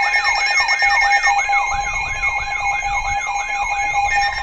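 A loud stack of electronic alert sounds playing at once: a siren sweeping up and down about three times a second over several steady alarm tones and a fast high beeping. About four seconds in, the steady tones change and a new steady tone starts.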